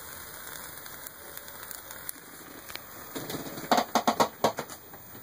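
Two-stage pop-can alcohol stove burning under a pot of water, a steady hiss from its jets. About three and a half seconds in comes a quick run of loud clicks and knocks.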